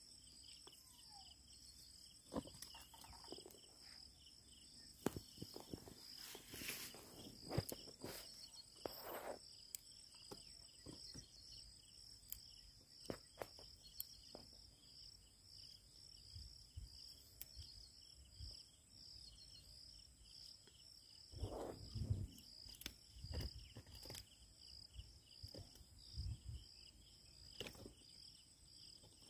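Faint, steady, evenly pulsing chirring of insects, with a few soft clicks and low thumps of handling now and then.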